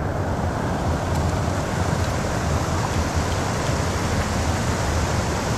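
Steady rush of creek water spilling over a small rocky cascade.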